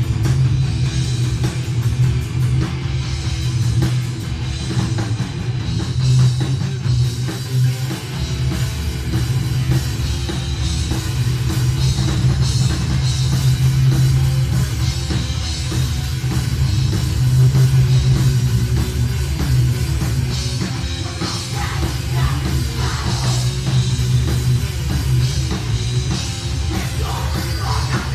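A heavy metal band playing live, with loud distorted guitars and a drum kit, heard through a mobile phone's microphone.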